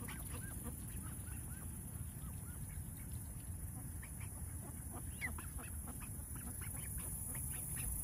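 Ducks and geese calling: many short quacks and honks scattered throughout, over a steady low rumble.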